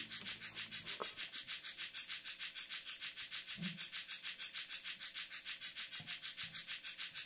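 Modular synthesizer playing an even, rhythmic pulse of hissing noise, about five hits a second, like an electronic hi-hat pattern opening the song, with faint steady tones under it.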